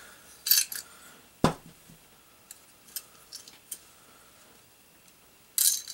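Small steel 1911 pistol parts clicking and scraping as the thumb safety is worked back out of the frame, with one sharp knock about one and a half seconds in and a few faint clicks after it.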